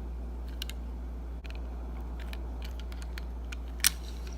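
Small clicks and taps of a 1:64 die-cast car's wheels and axles being pressed back into the chassis, with one sharper click near the end.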